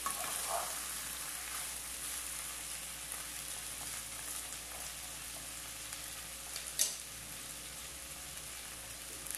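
Sliced onion, green pepper and tomato sizzling in oil in a frying pan, salted so they wilt and release their water, with a wooden spoon stirring them near the start. One sharp knock about two-thirds of the way through.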